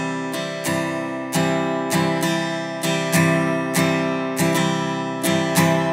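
Acoustic guitar strummed over one chord in a repeating down, down-up, up-down pattern, about two strums a second. It is played stiff and counted, the tense feel that sounds jerky and "all yucky" rather than relaxed.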